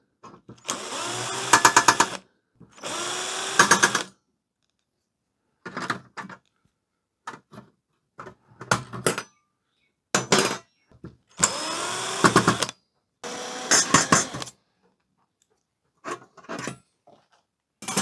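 Cordless drill-driver backing out screws from sheet-metal brackets in about ten short runs. The motor rises in pitch as each run starts, and the longer runs, two near the start and two around the twelve- and fourteen-second marks, end in rapid clicking.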